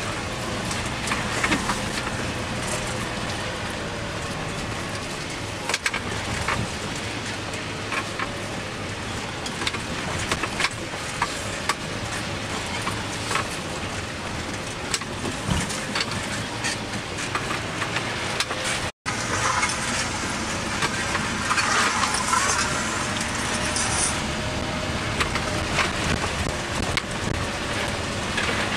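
Vehicle cabin noise while driving slowly on a rough dirt track: a steady engine drone with frequent clicks, rattles and knocks from the body.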